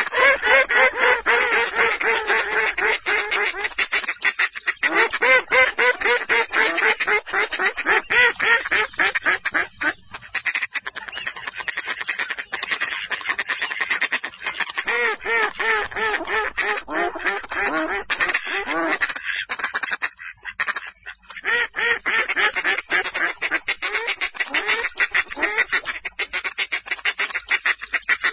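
Mallards quacking in a dense, continuous run of calls, with short lulls about ten and twenty seconds in.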